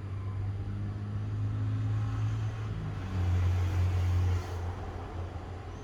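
A motor vehicle's engine running with a low, steady hum, swelling louder from about three seconds in for a second and a half before easing back.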